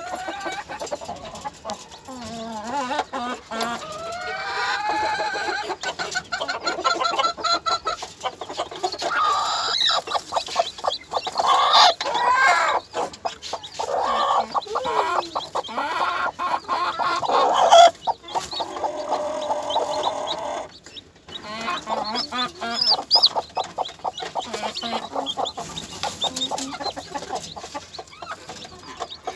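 Broody hen clucking on her nest, with newly hatched chicks peeping under her. The calls go on almost without pause, loudest about eighteen seconds in.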